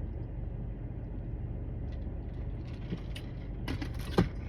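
Steady low rumble of a car engine idling, heard from inside the vehicle. A few light clicks come near the end, then a single sharp knock.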